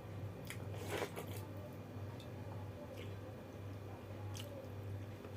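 A person eating close to the microphone: a few crunchy bites of fried food with chewing in between, the loudest crunch about a second in, over a steady low hum.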